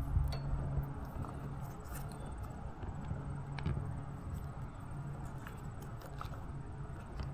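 Steady low outdoor rumble with a low hum, and a few faint clicks from the plastic fence mount being handled and adjusted on a chain-link fence.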